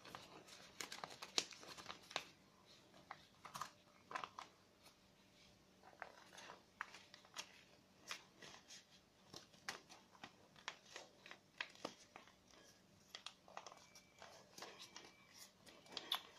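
A sheet of paper being handled and folded: faint, scattered crinkling and rustling with small clicks.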